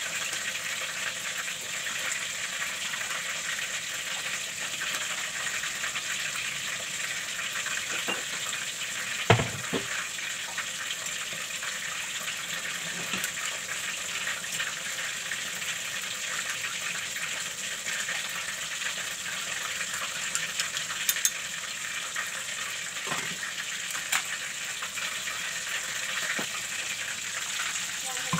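Steady hiss of a pot of water simmering on a gas stove, with a bowl of sauce heating in it as a water bath. A sharp knock comes about nine seconds in, and a few light clicks follow later as the sauce is stirred.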